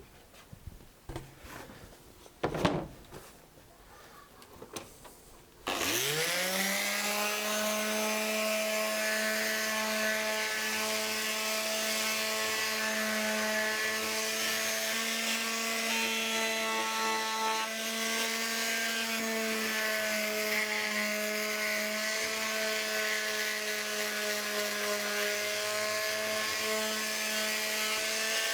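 A few knocks and handling sounds, then about six seconds in an electric sheet sander starts up, its whine rising quickly and settling into a steady run. The 180-grit sheet is sanding back the first coat of varnish.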